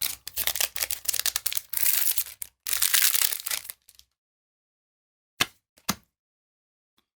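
Crinkling and tearing of a foil booster-pack wrapper, a dense crackle lasting about four seconds, then two short clicks near the end.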